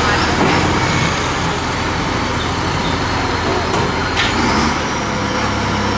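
Hydraulic excavator's diesel engine running steadily, with a change in its low hum near the end.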